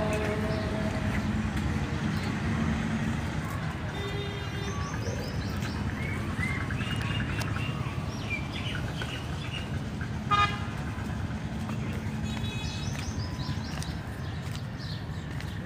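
Steady outdoor traffic noise with birds chirping, cut by one short, loud horn toot about ten seconds in.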